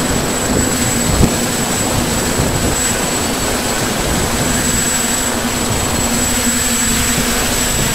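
Multirotor hexacopter's electric motors and propellers running steadily, a continuous whirring drone with a thin high whine held over it.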